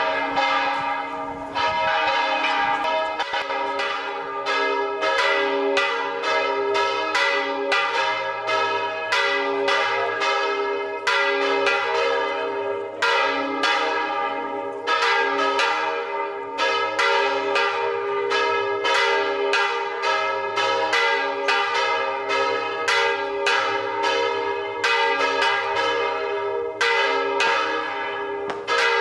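Church bells pealing, struck quickly at several strokes a second, their tones ringing on and overlapping one another.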